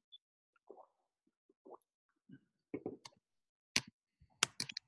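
Computer mouse clicks: a few faint soft sounds at first, then single sharp clicks about three and four seconds in and a quick run of clicks near the end.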